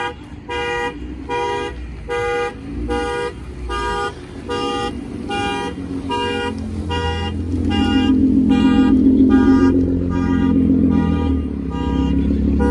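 A car horn sounding in a steady repeating pattern, about two honks a second. Under it, a car's exhaust grows louder from about halfway through as the car pulls away.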